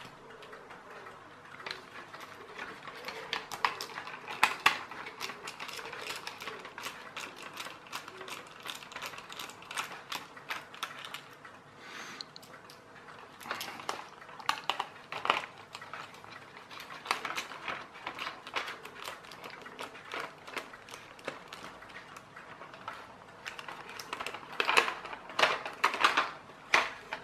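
Irregular small clicks and taps of a precision screwdriver and hard plastic parts being handled while screws are taken out of an XQ Toys RC M1A2 Abrams tank's plastic turret, with a louder cluster of clicks near the end.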